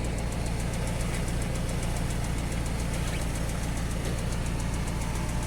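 Nissan Z24 2.4-litre four-cylinder engine idling steadily, with a fast, even ticking over the running sound.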